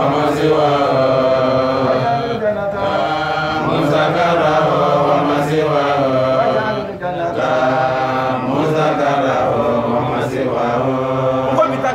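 A man's voice chanting a devotional Islamic text in a long melodic line of held notes, breaking off briefly twice.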